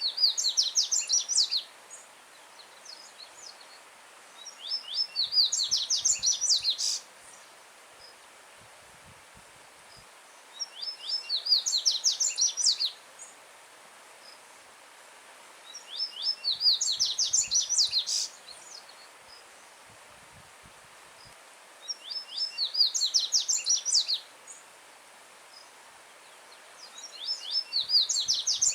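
A coleiro-baiano (yellow-bellied seedeater) sings loud, rapid two-second phrases of sharp high notes. Each phrase repeats about every five and a half seconds. A steady hiss of a stream running over stones sits underneath.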